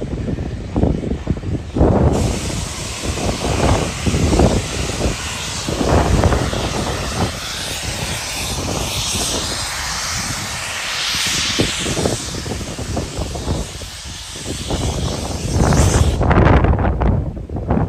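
Steam locomotive letting off a long, steady hiss of steam that starts about two seconds in, swells in the middle and cuts off near the end. Wind gusts buffet the microphone underneath.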